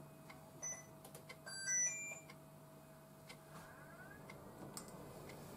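Induction cooktop's touch control panel beeping as it is pressed, then a short chime of several notes stepping up in pitch about two seconds in as the heating switches on. A faint steady hum lies underneath.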